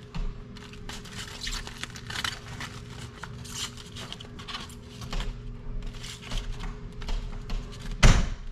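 Crisp lettuce leaves being pulled apart and torn by hand: irregular crackling and rustling, with one loud thump near the end, over a faint steady low hum.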